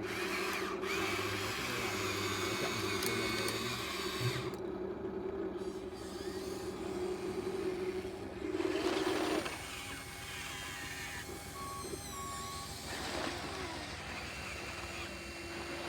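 Small electric motors and hydraulic pumps of 1/16-scale RC excavators running: a steady mechanical whine whose pitch shifts a few times as the machines work.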